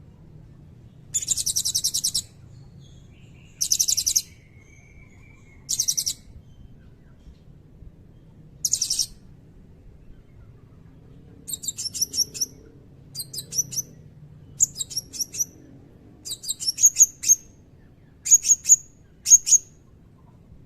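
Blue-crowned hanging parrot (serindit) calling: a few short, fast, high trills, each a second or less, then from about halfway a quick run of sharp, piercing high chips in clusters.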